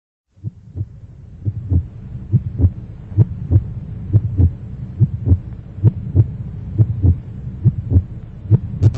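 Heartbeat sound effect: low double thumps repeating a little under once a second over a steady low hum, fading in over the first couple of seconds.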